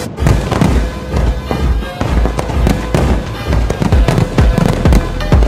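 Aerial fireworks bursting in a rapid, irregular string of bangs, mixed with background music that has a heavy bass.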